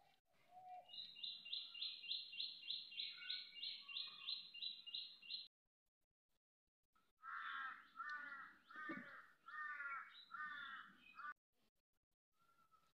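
Birds calling: a fast run of high, evenly spaced notes, about three or four a second, that cuts off suddenly about five seconds in. After a short silence comes a series of lower, harsher repeated calls, then one faint note near the end.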